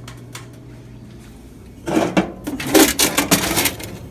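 A low steady hum, then, about two seconds in, a run of metallic clunks and rattles as a vending machine's coin box is opened and pulled out.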